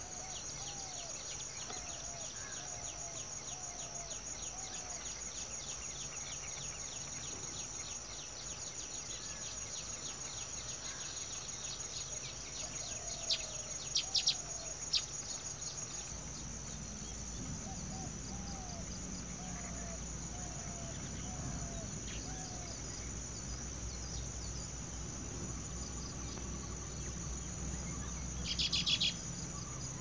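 A steady, high-pitched insect drone with a series of short, repeated bird calls. A fast run of ticks sits under it for the first dozen seconds, with a few sharp clicks around the middle and a brief, louder chatter near the end.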